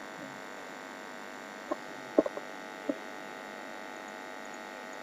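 Steady electrical hum and hiss with several faint steady tones, broken by four or five short clicks between about a second and a half and three seconds in, the loudest just after two seconds.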